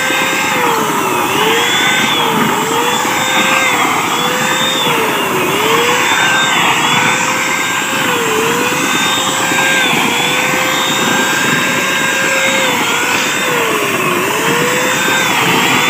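Handheld electric paint spray gun running continuously as it sprays roof-tile paint, a steady motor whine over a hiss. Its pitch sags and recovers every second or two.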